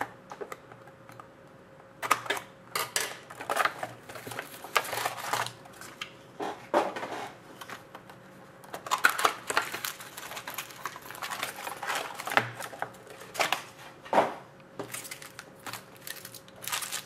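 Sealed trading-card boxes being opened by hand: irregular bursts of plastic wrap crinkling and tearing, with cardboard and packs rustling and tapping.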